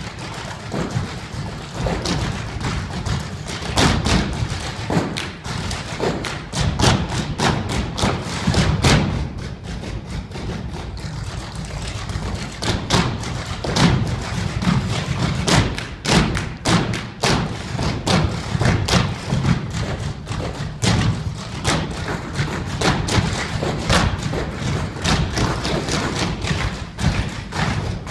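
A clogging team dancing a cappella: many clogging shoes' metal taps striking a hard floor in rapid, rhythmic volleys, the footwork itself making the only rhythm.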